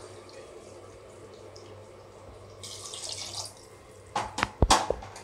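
Coconut milk being poured into a pressure cooker of soaked rice, a liquid pour that grows louder about three seconds in. Near the end come several sharp metal knocks, the loudest sounds.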